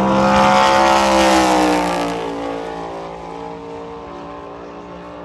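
NASCAR stock car's V8 engine at full speed passing by: it swells to its loudest about a second in, then drops slightly in pitch and fades away as it goes past.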